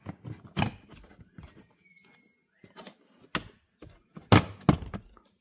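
Plastic trim clips of a Mercedes GLC X253 dashboard end panel snapping loose as a plastic pry tool pops the panel off: a string of sharp clicks and knocks, loudest about four seconds in.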